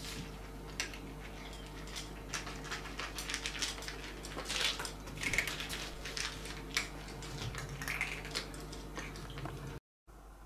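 Two cats crunching dry kibble, one from a plastic bowl and one from a stainless-steel bowl, in quick irregular crunches. It cuts off suddenly near the end.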